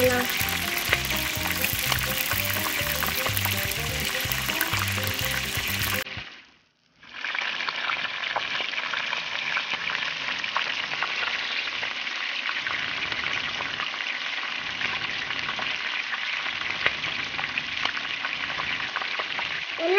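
Marinated paneer, capsicum and onion skewers sizzling and crackling in oil on a small steel pan. Background music with a steady low beat plays over the first six seconds, then the sound cuts out briefly and the sizzling carries on alone.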